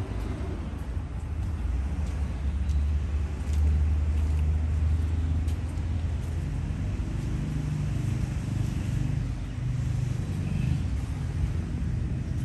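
Low rumble of a motor vehicle engine running. Its pitch steps up a little about halfway through, and faint light clicks sound over it.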